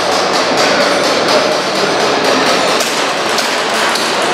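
Airsoft pistol firing in a series of sharp, irregularly spaced shots, with BBs clacking on targets, over a steady wash of echoing hall noise.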